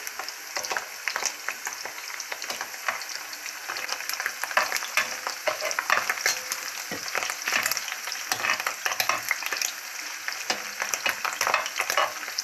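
Pieces of lamb liver sizzling and crackling in hot vegetable oil in a thick-walled cast-iron skillet, a dense run of small pops. A metal spatula scrapes and taps the pan as the pieces are turned.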